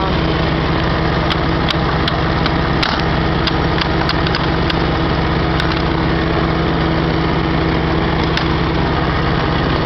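Small lawn tractor engine running steadily at an even speed, with scattered sharp clicks and ticks, most of them in the first half.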